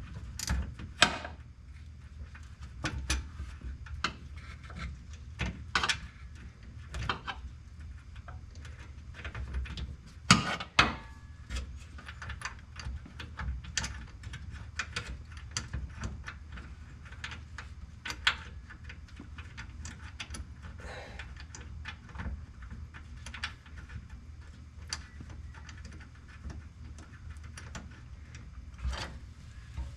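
Irregular clicks and knocks from hand work with tools and bolts, with a louder knock about a second in and another about ten seconds in, over a low steady hum.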